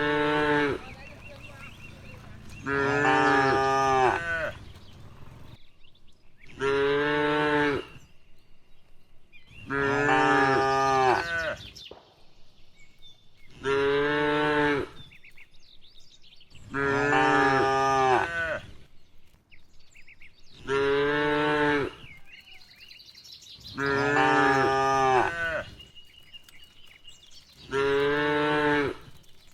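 Cattle mooing over and over: nine moos at even spacing, about one every three and a half seconds, alternating shorter and longer calls.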